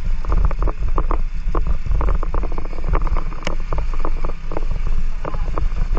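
Motorcycle ride on a rough dirt road: heavy wind buffeting on the microphone over the low rumble of the bike, with many irregular sharp clicks, several a second.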